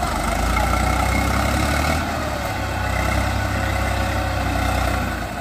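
Diesel tractor engines working under load as a Mahindra 575 DI tows a mud-stuck Eicher tractor and its loaded trolley: a steady low engine note that eases slightly about two seconds in.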